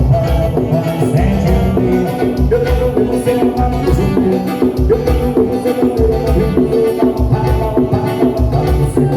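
Live band music in an instrumental passage: a pulsing bass line under repeated melodic notes, with shaker-like percussion.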